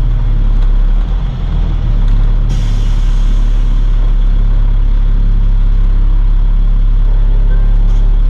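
Box truck's engine running steadily, heard from inside the cab while driving. About two and a half seconds in a sudden hiss starts and fades away over a second or so.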